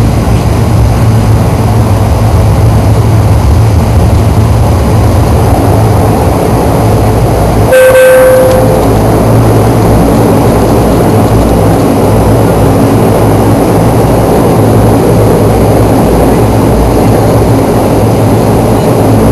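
ATR 42-300's Pratt & Whitney PW120 turboprop engines and propellers running loud and steady, heard inside the cabin beside the propeller. A brief tone sounds once about eight seconds in.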